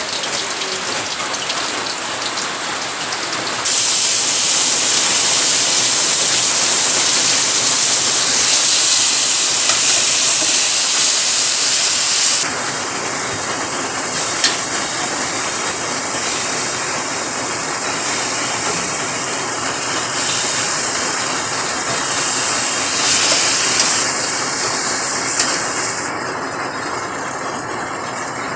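Rain falling together with spices sizzling in hot oil in a wok: a steady hiss that turns louder and brighter a few seconds in and drops back about twelve seconds in.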